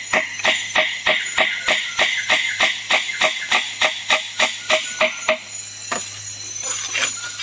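Rapid, even hammer taps on a nail, about four a second, fixing a nameplate to a wooden grave post; the tapping stops about five seconds in, followed by a few single knocks.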